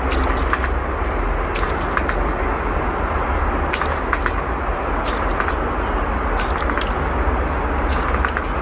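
Garden hose spray nozzle running: a steady hiss of spraying water over a low rumble, with scattered sharp clicks.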